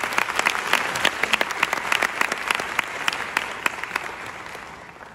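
Audience applauding, a dense patter of many hands clapping that gradually fades away over the last couple of seconds.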